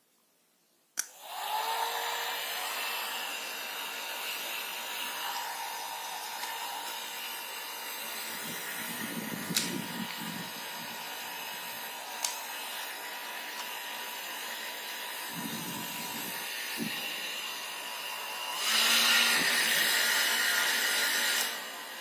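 Nova 1000 W hand-held hair dryer switched on with a click about a second in, then running with a steady rush of air and a faint motor whine. It grows louder for about three seconds near the end, then drops back.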